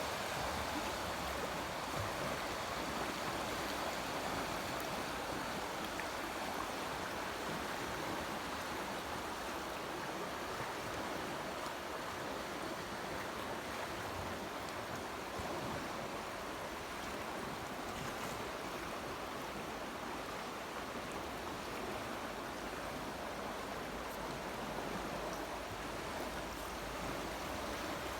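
The Amblève river's water flowing: a steady, even rush of moving water.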